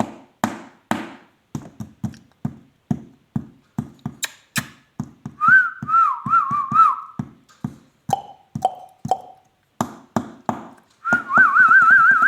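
Ringneck parrot whistling, a warbling, wavering tune in two spells with a few short lower notes between, over a regular run of taps about two a second.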